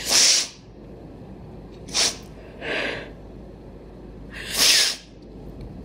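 A woman crying: a sharp sniff right at the start, then further sniffs and breaths about two, three and four-and-a-half seconds in.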